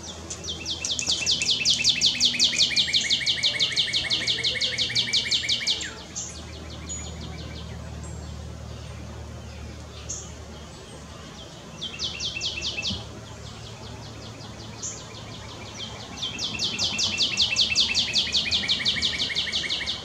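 Northern cardinal singing: a long, rapid trill of repeated high notes lasting about five seconds, a short burst of the same trill about halfway through, and another long trill near the end.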